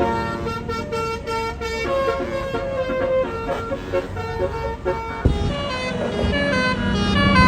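A tour bus's Basuri telolet horn, a multi-tone electric horn, playing a quick melody of short stepping notes over the bus's engine. A single sharp knock sounds about five seconds in.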